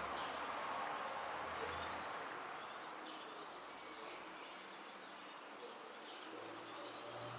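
Outdoor ambience: insects chirping in repeated short, high-pitched pulsed bursts over a steady hiss, with a faint bird call or two in the middle.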